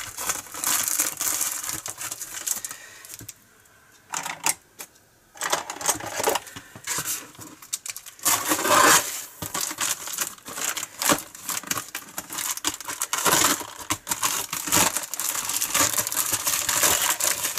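Black plastic mailing bag rustling and crinkling in the hands as it is searched, with sharp clicks, broken by a pause of about two seconds starting about three seconds in.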